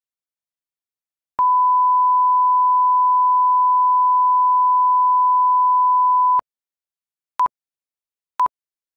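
Steady test tone played with colour bars, starting about a second and a half in and cutting off after about five seconds; then two short countdown-leader beeps at the same pitch, a second apart.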